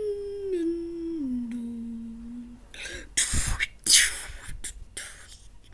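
A person's voice humming one held note that steps down in pitch over about two and a half seconds, then several short, loud hissing bursts.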